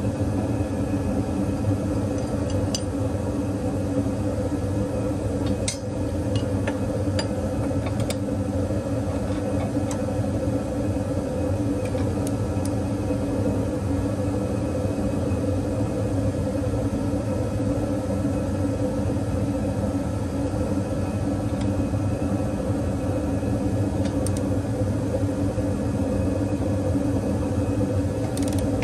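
A steady mechanical hum made of several even tones, with a few short metallic clicks of a spanner working on bolts.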